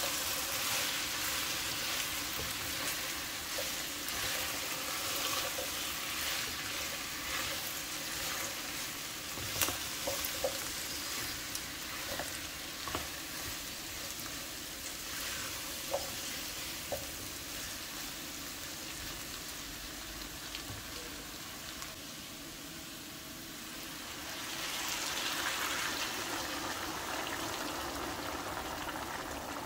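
Diced lamb, potatoes and carrots sizzling in a hot pot while being stirred with a silicone spatula, with a few sharp clicks of the spatula against the pot. About 24 seconds in, the hiss swells louder as liquid is poured onto the hot meat and vegetables.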